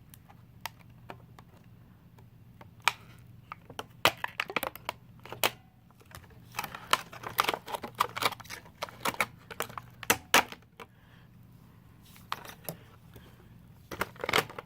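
Small plastic Beyblade parts and their packaging being handled and unpacked: irregular bunches of sharp clicks and taps, with quieter gaps between them.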